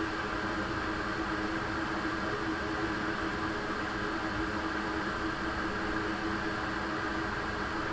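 A small electric fan running with a steady whir and hum that does not change.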